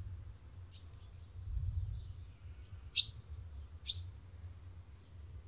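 Birds chirping: two short, sharp high chirps about three and four seconds in, with fainter chirps near the start, over a low rumble that swells briefly about two seconds in.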